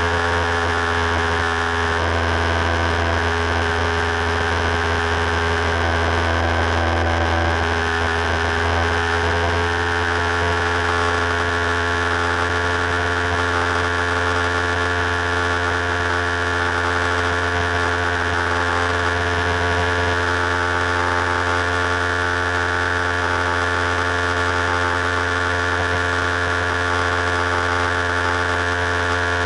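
Single-engine propeller aeroplane's engine and propeller droning steadily, heard from inside the cockpit, with a strong low hum and an even pitch.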